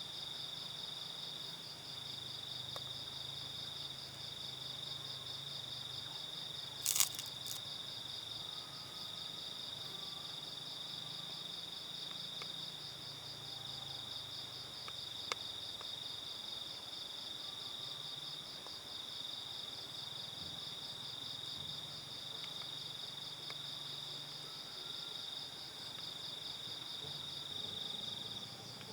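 Steady chorus of night insects, crickets chirring on two high pitches, one a fast even pulse. A couple of sharp clicks cut through about seven seconds in, the loudest moment, with a fainter tick about halfway through.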